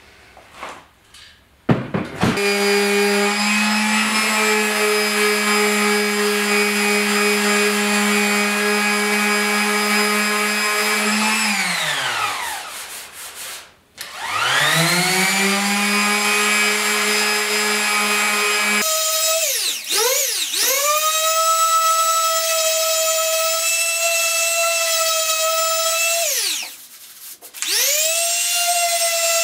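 Corded electric palm sander running on the painted steel hood of a truck, sanding out small dents and marker before glazing putty. It starts about two seconds in, winds down and stops a little past ten seconds, then starts again. About halfway through it runs at a higher pitch, and it cuts out briefly near the end before starting up once more.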